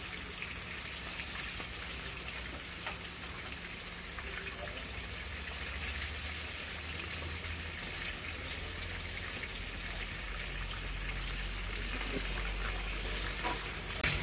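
Marinated mutton shanks shallow-frying in hot oil in a frying pan: a steady sizzle, with a few sharp clicks near the end.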